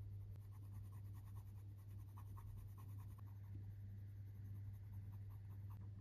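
Colored pencil shading on paper: rapid, light back-and-forth scratching strokes, several a second, faint over a steady low hum.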